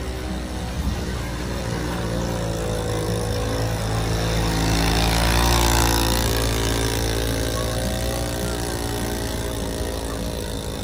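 A motor vehicle's engine running steadily, growing louder to a peak about halfway through and then fading again.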